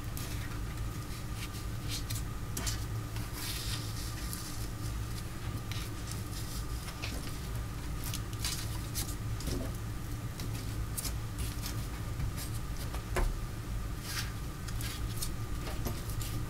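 Hands rubbing and pressing paper and fabric flat on a glued collage, with scattered light rustles and taps over a steady low hum.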